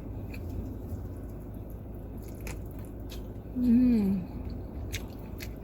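A person eating: soft chewing and small biting clicks over a low steady hum in a car's cabin, with a short hummed "mmm" of enjoyment, falling in pitch, about three and a half seconds in.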